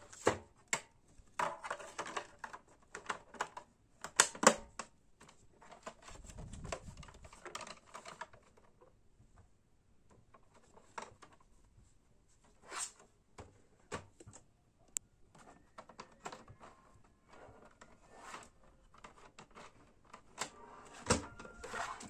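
Hard plastic parts of a mini evaporative air cooler being handled and fitted together: irregular clicks, taps and knocks with some rustling as the honeycomb cooling pad is seated and the housing, fan grille and water tank are put together.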